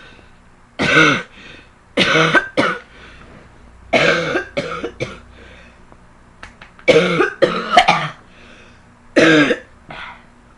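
A girl coughing in about five bouts of one to three short, loud coughs each, a second or two apart.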